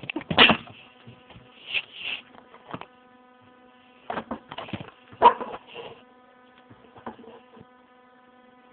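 Wet shaving brush being worked through tallow soap lather in a bowl: irregular squelching, swishing strokes in clusters, with a faint steady buzz underneath.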